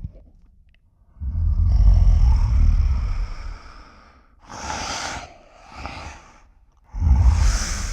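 Designed kaiju monster sound effects: a deep growl starting about a second in and lasting about three seconds, then two short breath-like hisses, and another deep growl starting near the end.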